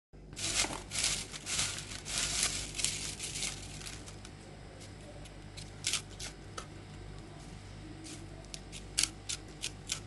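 Popcorn kernels popping: a rapid flurry of pops that thins out to occasional single pops, the tail end of a batch. A low steady hum runs underneath.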